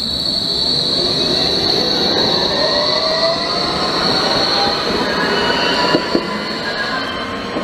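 A Bombardier Flexity Berlin low-floor tram passing close by on street track, with a steady high-pitched squeal and a rising electric whine over the rolling noise. Two short knocks come about six seconds in.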